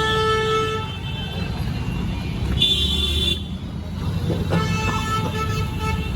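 Busy street traffic with engines running and vehicle horns honking: one horn held for about a second at the start, another short honk about three seconds in, and more honking near the end.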